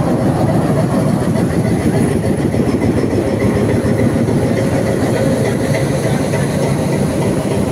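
YDM-4 metre-gauge diesel locomotive idling at a standstill: a loud, steady engine drone with a faint whine above it.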